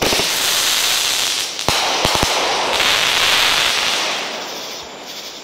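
A shot from a 500-gram consumer firework cake bursts with a sudden bang, followed by dense crackling from a spread of small white stars. A few sharper pops come about two seconds in, and then the crackle fades out.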